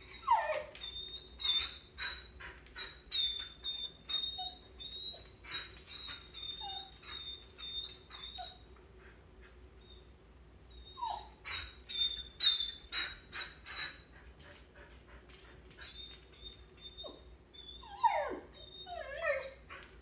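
A Samoyed whining in high, thin, kettle-like whistles, in rapid runs of short squeaks broken by a few falling yelps at the start, about eleven seconds in and near the end, with two short lulls between. The whining is her excitement at a dog friend passing the house, eager to go out and play.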